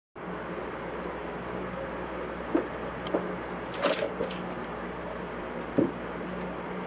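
Two cats play-fighting on a wooden floor: a few soft thumps and scuffles of paws, with one brief harsh noise about four seconds in, over a steady low hum.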